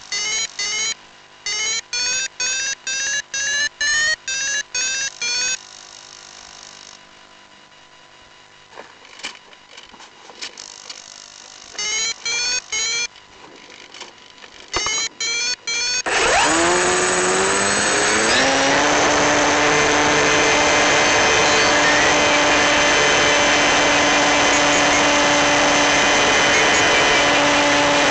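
Electric motor and folding propeller of an FPV model plane, heard from the onboard camera. The motor comes on loud about halfway through, its whine rising in pitch for a couple of seconds as it winds up to throttle, then runs at a steady high pitch through the climb-out. Before that there is a run of short, evenly spaced whirring bursts, each rising in pitch, with quieter gaps between them.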